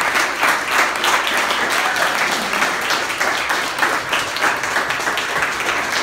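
A group of people applauding, many hands clapping at once.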